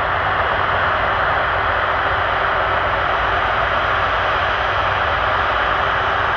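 Jet airliner engines running with a steady, unbroken rush and low rumble.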